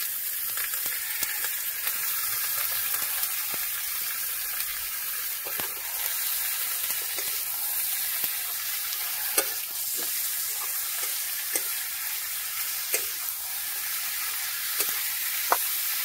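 Chicken pieces sizzling steadily as they fry in hot mustard oil with browned onion, garlic and chilli. Scattered light knocks come in from about five seconds in as the pan is stirred.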